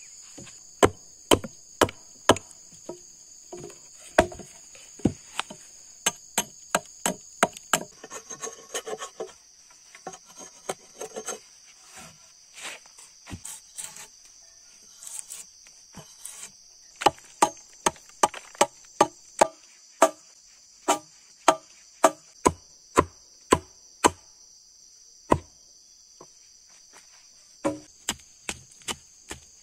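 Hatchet chopping into a log: sharp wooden strikes coming one or two a second in runs, with a scraping stretch as bark is stripped. Near the end a small mattock strikes into soil. A steady high-pitched insect buzz runs underneath.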